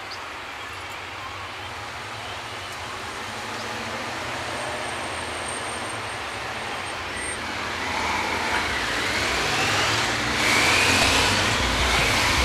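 Street traffic noise, with a passing vehicle growing louder over the second half.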